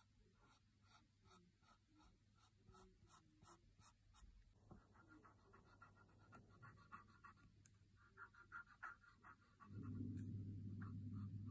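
Faint scratching of a paint marker's tip on a phone case, in short repeated strokes about two or three a second, then quicker continuous rubbing as the colour is filled in. A steady low hum comes in near the end and is louder than the marker.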